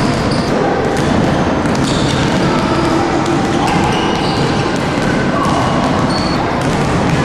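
Many basketballs being dribbled at once on a wooden gym floor, a steady jumble of bounces, with children's voices mixed in.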